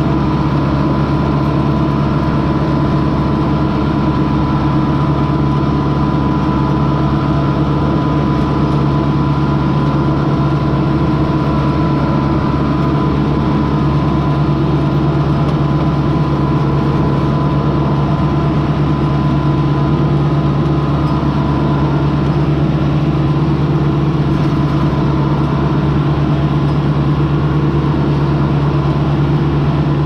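Tractor engine running steadily at working speed while pulling a round baler through hay windrows, heard from the operator's seat, with a thin steady whine above the engine drone.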